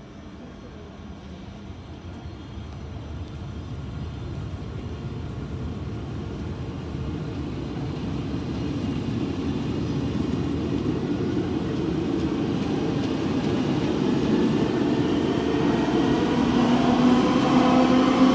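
BB 27300 electric locomotive with VB2N double-deck coaches pulling out, the rumble of the train growing steadily louder. In the last few seconds a whine with several tones comes in and rises slowly in pitch as it gathers speed. This is the odd noise the filmer reports from the BB 27300.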